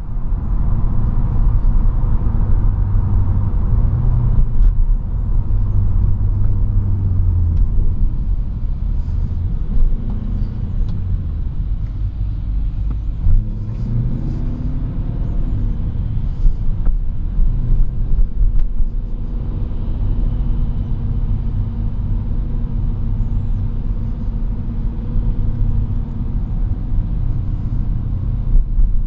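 Mercedes C63 AMG's V8 engine, heard from inside the cabin, running at low revs in slow traffic with a steady low rumble. Its pitch rises once about halfway through as it pulls away.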